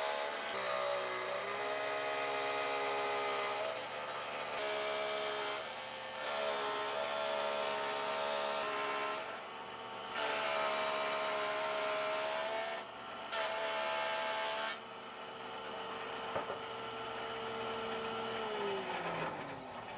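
Benchtop jointer running with a steady motor whine, louder in repeated stretches as glued-up pine boards are pushed across the cutterhead, with short dips between passes. Near the end it is switched off and the whine falls in pitch as the motor spins down.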